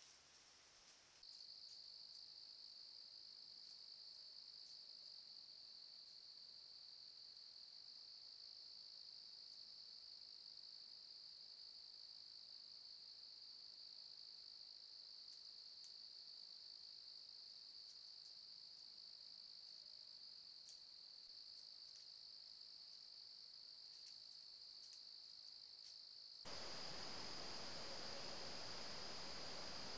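Crickets singing in a steady, unbroken high-pitched chorus, faint under trail-camera hiss. Near the end it turns louder and hissier.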